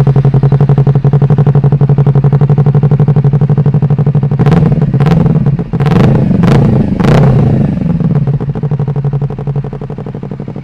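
Honda CBR250RR parallel-twin engine running through a custom dual undertail exhaust: it idles with an even pulse, is blipped sharply about five times in quick succession around the middle, then settles back to idle.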